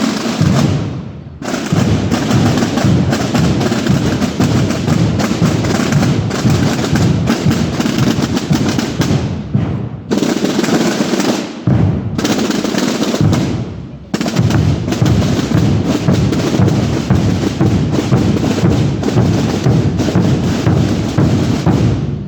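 A group of drums, snare-type drums and bass drums, played together in a dense, continuous rolling rhythm, with a few brief lulls.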